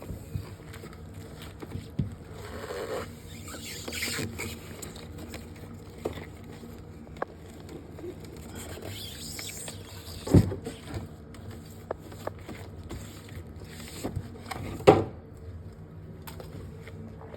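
Handling noises: scattered light knocks and clicks with short rubbing sounds, and two louder thumps, about ten and fifteen seconds in.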